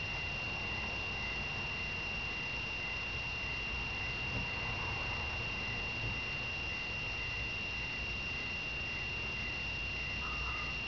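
Steady high-pitched electronic whine over hiss and low rumble, with a fainter tone below it pulsing a couple of times a second.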